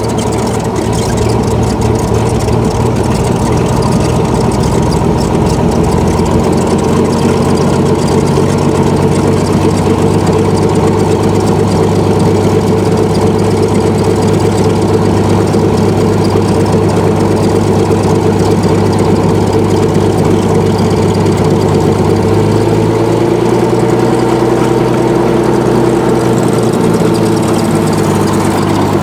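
1948 Ryan Navion's piston engine and propeller running at low taxi power, heard from the cockpit: a steady, loud engine drone. The engine note drops a little a bit over 20 seconds in.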